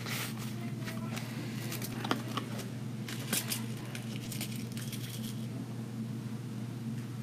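Rustling and crinkling of craft ribbon being unrolled from its spool and handled, with scattered light clicks, mostly in the first five seconds, over a steady low hum.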